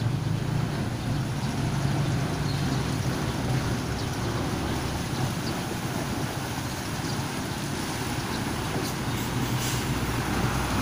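A truck's diesel engine running steadily as vehicles drive slowly through muddy standing water, with a continuous wash of water around the tyres.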